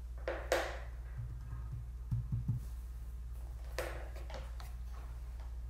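Quiet room tone with a steady low hum, broken by a brief soft noise about half a second in and again about four seconds in, and a few light low knocks a little after two seconds.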